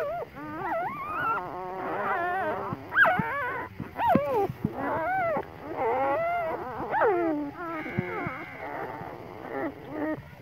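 A litter of very young puppies whimpering and crying, many short calls that rise and fall in pitch, overlapping almost without pause.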